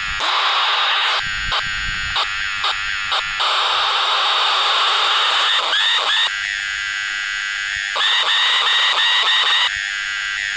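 Defective radios giving off hiss and static that cuts in and out abruptly, with whistling tones that rise in pitch about six seconds in and a fast warble near the end.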